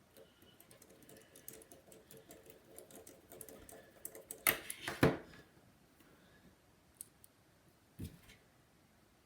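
Light, scattered clicks and taps of a precision screwdriver driving the tiny screws back into a first-generation iPhone SE, with two sharp knocks about halfway through and another near the end.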